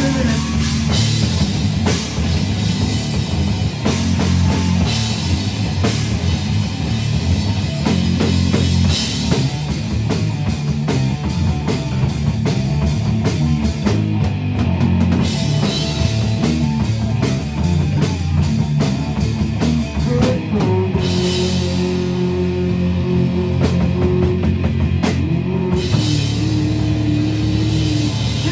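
Heavy metal band playing live: two electric guitars, bass guitar and a drum kit in a loud, dense, steady mix.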